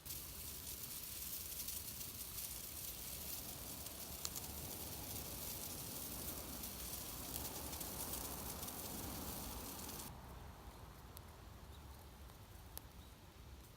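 Wood campfire burning, a steady hiss with scattered small crackles, easing off about ten seconds in.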